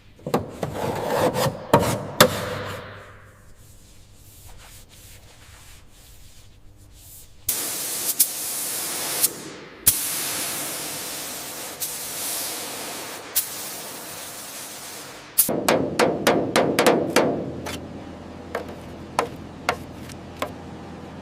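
Hand-tool work on the hull: scraping and tapping, then a steady hiss for several seconds in the middle. After that comes a burst of rapid clicks and scraping, thinning out to scattered ticks near the end.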